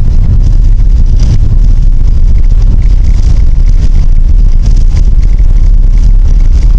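Tram rolling along its track: a loud, steady low rumble.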